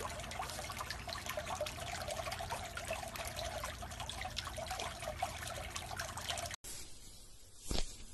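Swimming-pool water trickling and lapping, a steady wet patter with many small drips, which cuts off suddenly about six and a half seconds in; a quieter stretch with a faint knock or two follows.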